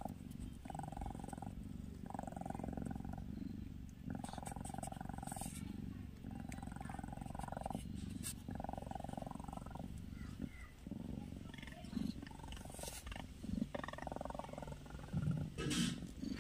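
Calico mother cat purring close up, a low continuous purr that swells and eases with her breathing about every two seconds, as she tends her newborn kitten. A few sharper noises near the end.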